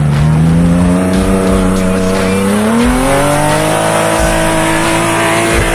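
Off-road buggy's engine running hard under load in a muddy gully; its pitch rises steadily about halfway through and then holds high.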